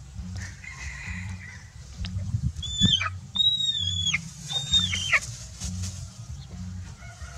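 A chicken in distress giving several shrill, high calls from about a third of the way in, each call falling in pitch at its end.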